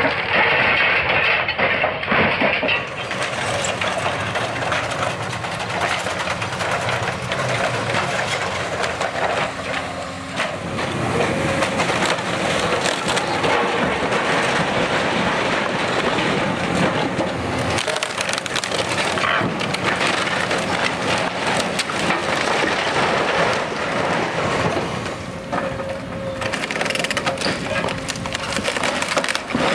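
Old timber-framed house being torn apart by an excavator's demolition grapple: wooden beams cracking and splintering, with clay roof tiles and rubble crashing down in a dense run of cracks and crunches.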